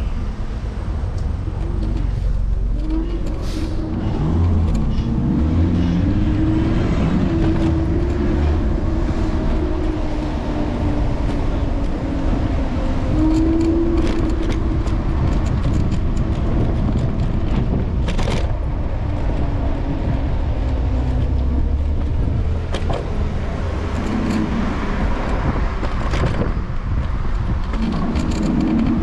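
City street traffic heard from a moving electric scooter: passing vehicles, with an engine rising and falling in pitch, over a steady low rumble.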